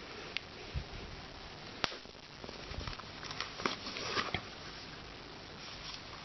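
Hands working a doll out of its packaging: scattered small clicks and ticks with light rustling, one sharper click just under two seconds in.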